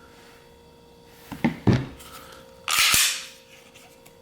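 Sig Sauer P320 with its stock trigger dry-fired against a trigger pull gauge: a couple of light clicks, then a sharp click as the trigger breaks and the striker releases. About a second later comes a short scraping noise with another click, as the gauge comes off the trigger.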